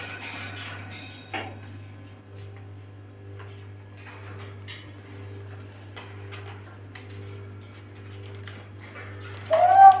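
Rainbow lorikeet giving one short, loud squawk near the end, over a steady low electrical hum and scattered light clicks and taps.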